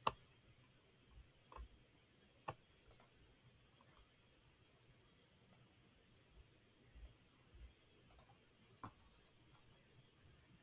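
Computer mouse clicking: a series of short, sharp clicks at irregular intervals, two of them quick double-clicks, over faint room tone.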